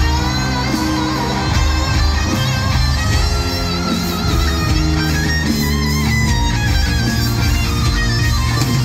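A rock band playing live in an arena: a sustained electric guitar lead with wide vibrato over bass and drums.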